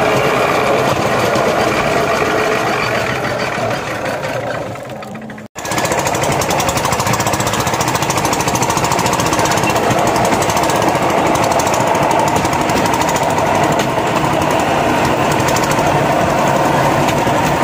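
Small engine of a rail trolley running steadily, a rapid, even clatter, as the trolley travels along the track. The sound drops out briefly about five and a half seconds in, then carries on.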